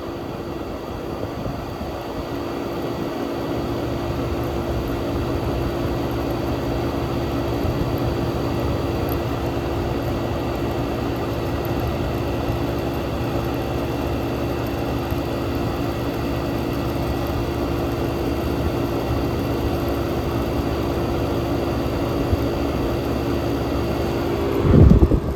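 1967 Chrysler Airtemp Imperial air conditioner running steadily: the Tecumseh AJR 1727 compressor humming under the rush of its fan air. A brief low rumble sounds near the end.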